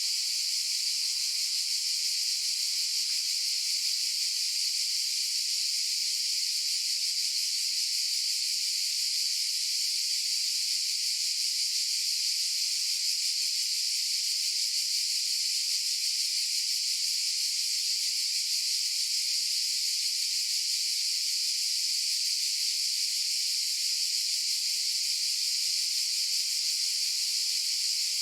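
Cicadas buzzing in a steady, unbroken high-pitched drone.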